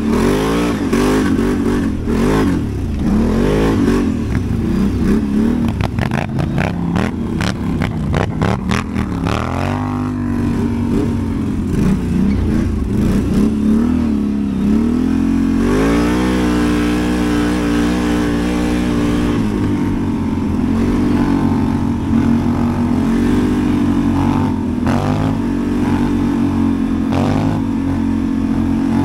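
ATV (quad bike) engine revving up and down as it is ridden, holding a steady pitch for a few seconds about halfway through. A rapid run of knocks and clatter sounds over the engine in the first third.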